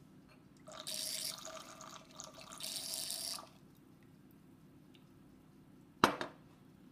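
Red wine poured from a bottle through a handheld LeVinRouge wine aerator into a wine glass: a rush of liquid with one steady pitch in it for about three seconds. About six seconds in, a single sharp knock as the glass bottle is set down on the table.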